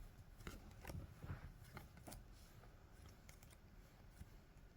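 Faint flicks and rustles of Pokemon trading cards being handled and flipped one by one, with a few soft clicks about every half second in the first two seconds, fainter after.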